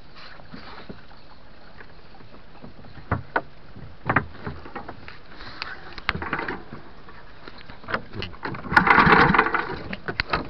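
Scattered knocks and clatter of gear being handled aboard a small wooden boat, then a loud rushing burst lasting about a second near the end.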